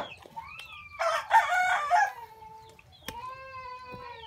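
A rooster crows loudly about a second in, a harsh call lasting about a second. Quieter, drawn-out animal calls come before and after it.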